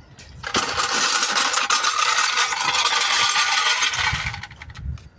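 Impact wrench hammering lug nuts onto a car wheel's studs in one continuous rattling run of about four seconds. It starts about half a second in and stops near the end.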